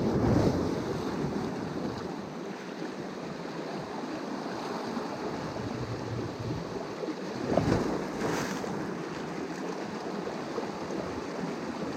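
Sea waves washing on the shore, with wind on the microphone; the surf swells louder near the start and again about seven and a half seconds in.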